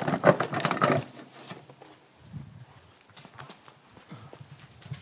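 Close, dense clattering and knocking for about the first second, then scattered lighter knocks and clicks: handling noise of hard objects being moved right by the microphone.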